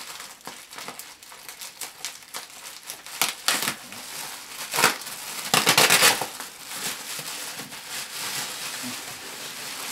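Plastic bubble wrap being gathered and pulled out of a cardboard box, crinkling and rustling, with louder bursts of crackling about three seconds in and again around the middle.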